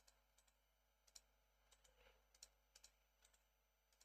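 Faint, irregular clicks of computer input over near silence, about a dozen short clicks, some in quick pairs.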